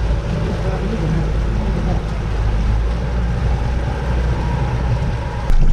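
Motorboat engine running steadily, a low drone under a hiss of wind and water noise.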